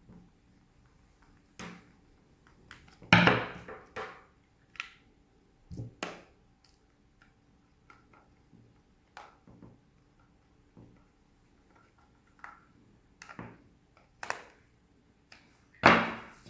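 Scattered clicks and knocks of a plastic hair dryer housing being handled and closed up, with a louder knock about three seconds in.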